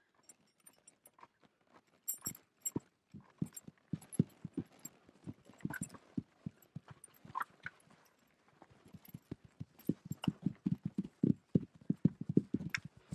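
Hooves of a ridden horse and several loose horses thudding on packed dirt in an uneven patter. The hoofbeats start sparse and grow thicker and louder over the last few seconds.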